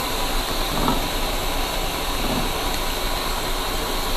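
Steady background hiss, even across low and high pitches, with a couple of faint handling sounds about a second in and again near two and a half seconds.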